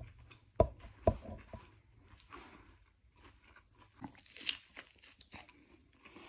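Close-up chewing of a chicken burger: short, sharp mouth clicks, loudest about half a second and a second in, then a fresh bite about four seconds in followed by more chewing.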